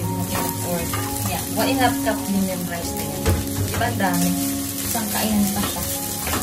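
Wooden spatula stirring and scraping leftover rice and vegetables around a nonstick frying pan in repeated strokes, over the sizzle of the food frying.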